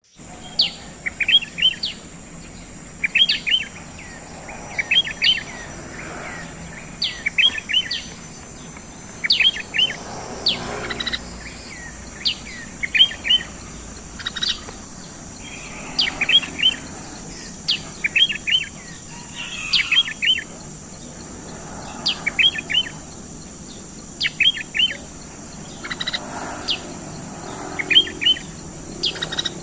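Sooty-headed bulbul (kutilang) singing, repeating a short phrase of quick chirps about every two seconds. A steady high insect buzz runs underneath.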